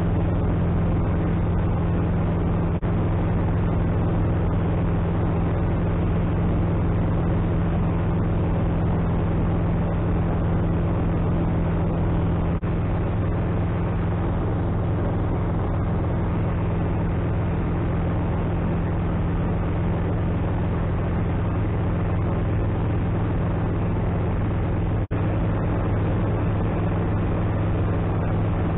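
Atec Zephyr light aircraft's engine and propeller running steadily in cruise flight, a constant low drone with wind noise, heard from inside the cockpit.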